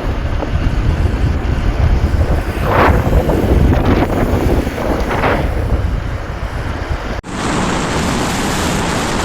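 Wind buffeting the microphone of a phone held out on a moving motorcycle at road speed, a heavy rumbling rush with a few louder swells around three to five seconds in. About seven seconds in it cuts abruptly to a steadier, brighter rushing hiss.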